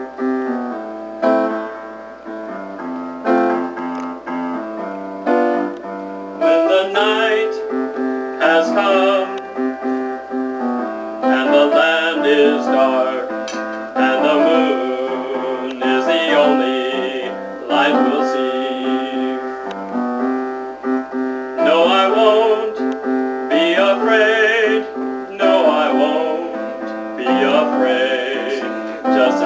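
An upright piano playing a chordal accompaniment alone at first, then a man's singing voice with a strong vibrato coming in about six or seven seconds in and carrying on over the piano.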